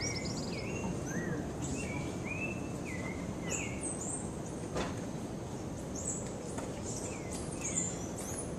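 Rainforest ambience: a steady rushing background with many short, high chirping calls from animals in the trees, overlapping in quick rising and falling glides. A single click about five seconds in.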